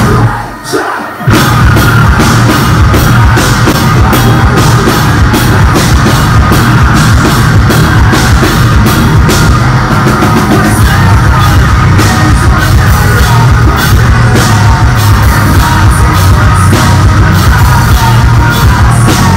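Live heavy rock band playing loud with distorted guitars, drums and yelled vocals, heard through a phone's microphone close to the stage. About half a second in the music breaks off briefly, then comes back.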